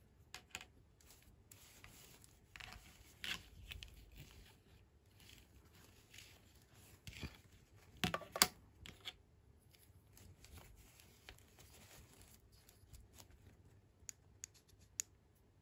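Small plastic doll accessories handled by hand: scattered light clicks and taps with brief rustles, the loudest cluster of sharp clicks coming about eight seconds in and a few sharper ticks near the end.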